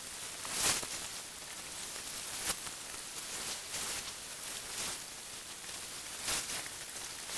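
Steady hiss with a few sharp clicks and crackles scattered through it, the loudest a little under a second in.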